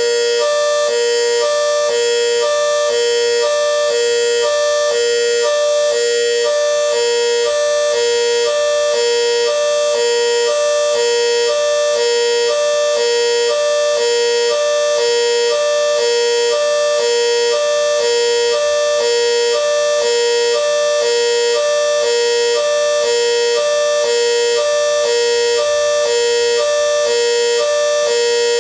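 GS CS-10V15QT siren sounding its hi-lo tone, two pitches alternating evenly about once a second. The siren has bad bearings.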